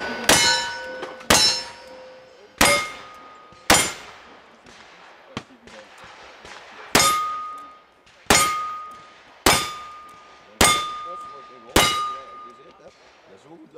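Revolver shots, each with a steel target ringing as it is hit: four shots, a pause of about three seconds, then five more, every shot followed by a clear ring that dies away.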